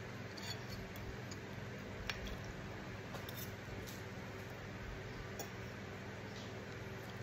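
Spoon and fork clicking and scraping lightly against a ceramic plate, a few sparse ticks spread over several seconds, over a faint steady hum.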